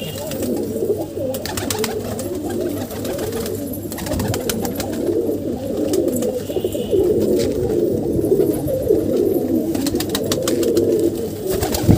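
A flock of domestic pigeons cooing over one another in a continuous, overlapping low chorus, with scattered sharp clicks, most of them near the start and near the end.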